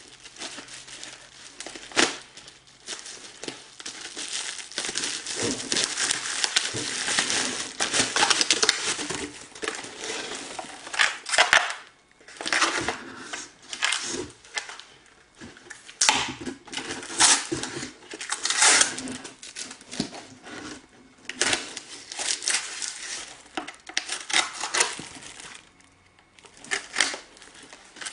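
Packaging being crinkled and torn open by hand, in irregular bursts with a few short pauses.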